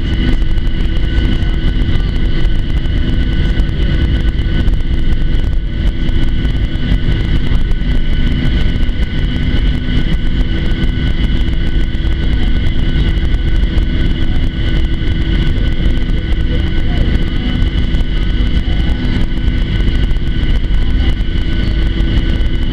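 Boeing 737-700's CFM56-7B engines at taxi idle, heard inside the cabin over the wing as the airliner taxis: a steady whine of several held tones over a deep rumble.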